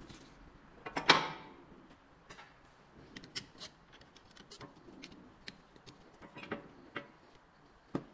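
A loud metallic clank that rings on briefly about a second in, then scattered lighter clicks and knocks: tools and brake parts being handled during a front brake disc and pad job.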